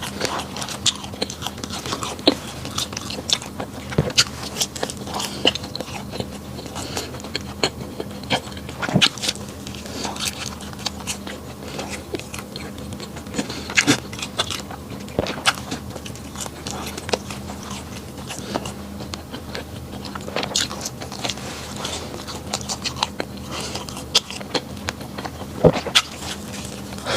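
A person chewing and biting bread, with many sharp mouth clicks at an irregular pace.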